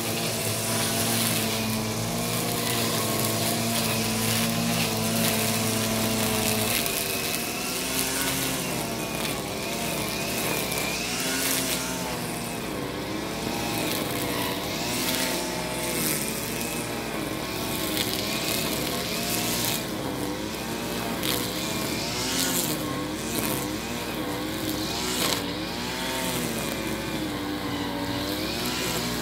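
Small petrol engines of grass-cutting machines running. The pitch holds steady for the first several seconds, then rises and falls continually as the throttle varies under load.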